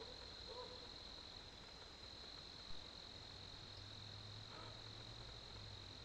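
Faint, steady high-pitched trilling of night insects, with a single short click about two and a half seconds in.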